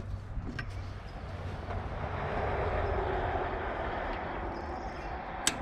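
A rushing vehicle-like noise swells over a couple of seconds and slowly fades over a low steady hum. Near the end comes one sharp click, as a zip tie is cut.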